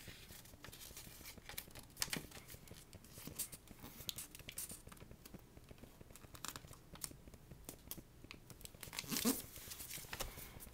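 A sheet of paper being folded and creased by hand into a paper airplane wing, rustling and crinkling in irregular little crackles, with a louder handling noise about nine seconds in.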